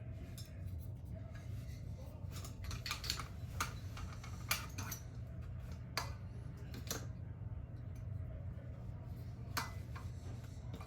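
Scattered clicks and light clinks of a GU10 track light fixture's parts being handled and screwed back together, over a steady low hum.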